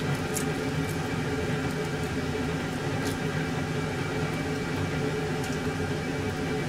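Steady whirring hum of a running kitchen appliance, with a few faint light clicks from garlic cloves being peeled by hand.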